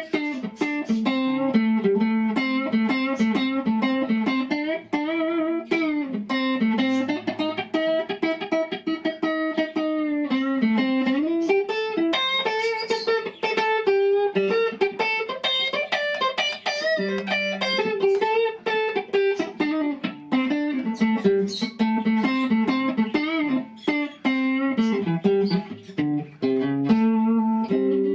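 Electric guitar played solo in a blues style, mixing runs of quick plucked single notes, picked with pick and middle finger in the chicken-picking manner, with held notes that bend and waver in pitch. The playing stops at the end.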